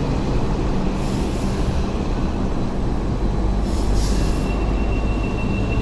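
Hong Kong Light Rail train moving along the platform, its motors humming and wheels rumbling on the track. About four seconds in, a thin, steady wheel squeal comes in and holds.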